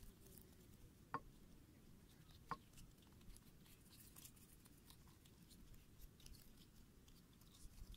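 Near silence with two short sharp clicks, about a second in and again a second and a half later, and light scattered ticking.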